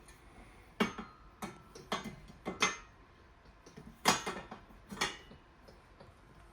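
Small metal hardware, Allen wrenches and rack fittings, clinking and clicking as it is handled: about seven separate sharp clinks, the loudest about four seconds in.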